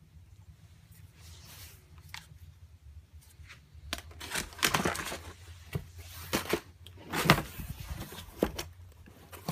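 A polymer pistol and a cardboard box being handled: light rustling at first, then from about four seconds in a run of knocks and scraping as the pistol is set into the box's cardboard insert and the cardboard lid is folded shut, the sharpest knock about seven seconds in.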